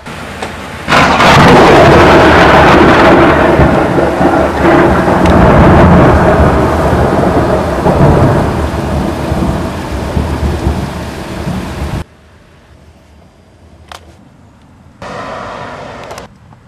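Loud thunderclap about a second in, rumbling on and slowly fading for about ten seconds over heavy rain, then breaking off abruptly. A quieter stretch of storm ambience follows, with a short burst of noise near the end.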